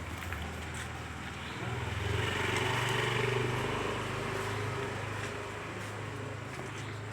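A motor vehicle's engine running close by, growing louder about two seconds in and easing off again after a few seconds.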